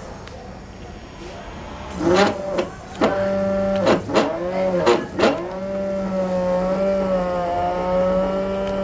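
CNC stepper motors whining as they are jogged, the pitch sweeping up and down as the axes speed up and slow down in several short moves. From about five and a half seconds in, a longer move holds a steady pitch.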